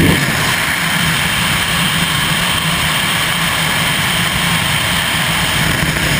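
High-performance powerboat under way at speed: a steady low engine drone under a loud, even rush of wind and water.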